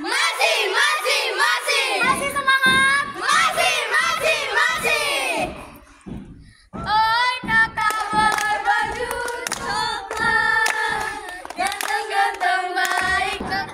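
A group of girls singing a scout cheer song together in unison, clapping their hands in time, breaking off briefly about six seconds in and then starting again.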